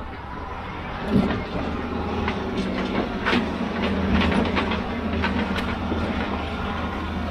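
A heavy machine's engine running steadily under load, with scattered knocks and clanks over it, the loudest about a second in.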